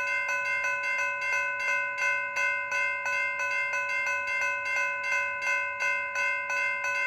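Railroad crossing bell ringing with quick, evenly repeated strikes, about three a second: the crossing's warning signal still active just after the train has passed.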